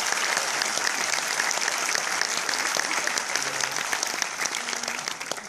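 Audience applauding: many hands clapping together, the clapping thinning slightly near the end.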